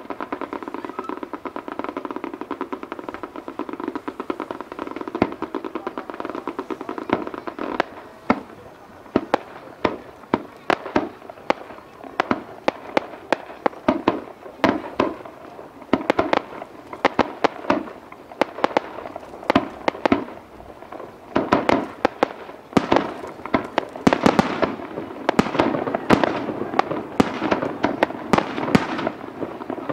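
Aerial fireworks display: a steady crackle, then a rapid, irregular string of sharp shell bursts that grows denser and louder toward the end.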